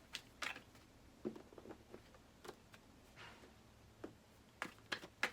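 Tarot cards being shuffled and handled: scattered light clicks and flicks of card stock, with a brief soft swish about three seconds in.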